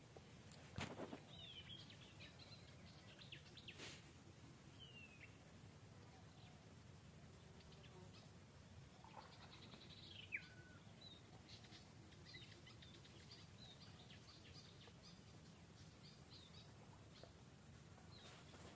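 Faint outdoor ambience, close to silence, with a few short high chirping calls scattered through it. The clearest is a falling call about ten seconds in. A steady thin high tone runs underneath, and two soft clicks come in the first few seconds.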